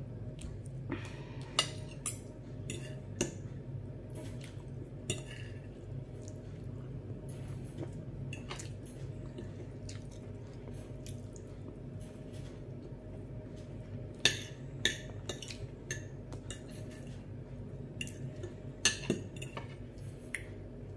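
Metal fork and knife clinking and scraping on a glass plate during a meal, with a few sharp louder clinks and soft chewing, over a steady low hum.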